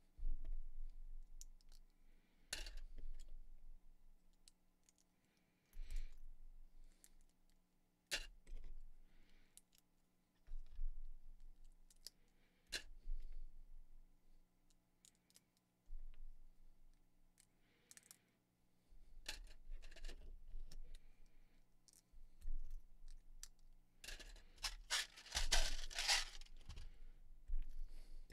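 Small plastic Lego pieces being handled and pressed together: scattered sharp clicks and rustling as bar clips and 1x1 round plates snap on, with a denser clatter of loose pieces near the end.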